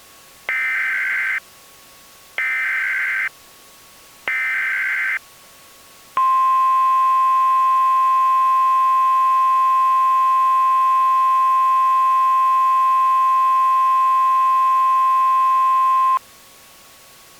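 Emergency Alert System signal: three short data-header bursts of warbling tones, about a second each, followed by the long steady attention tone, which holds for about ten seconds and cuts off sharply.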